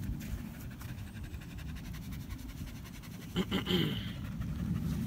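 Springer spaniel panting under a low steady rumble. About three and a half seconds in there is a short pitched sound, the loudest moment.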